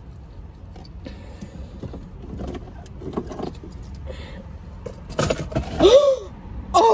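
Food wrappers and containers rustling and clicking over a steady low rumble in a car. About five seconds in, a sudden clatter as the fries and onion rings are knocked over, followed by two loud cries of surprise.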